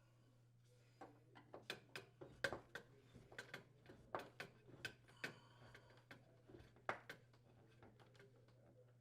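Irregular sharp clicks and light knocks of hand tools and hands on a sheet-metal range vent hood while its mounting screws are tightened, over a faint steady low hum.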